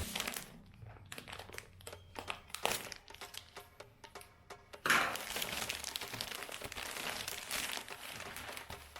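Plastic vacuum-sealed packaging crinkling and crackling as it is handled and opened, with scattered clicks and a sudden loud rush of noise about five seconds in, followed by steady crackling of the plastic.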